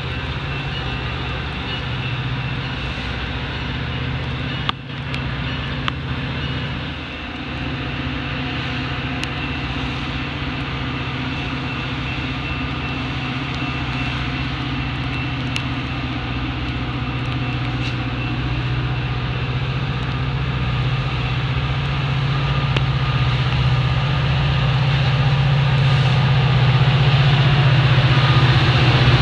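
EMD F40PH diesel-electric locomotive approaching at the head of a commuter train, its engine drone growing steadily louder as it nears. A grade-crossing bell rings high above it.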